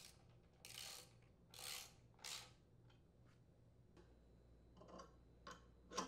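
Faint ratcheting of a socket wrench tightening the ignition coil's mounting bolt on a small engine: three short bursts of clicking in the first half, then a few light clicks near the end.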